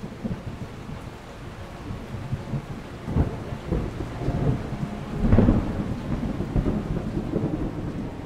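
Thunder rumbling over steady rain, with two sharper claps about three and five seconds in, the second the loudest.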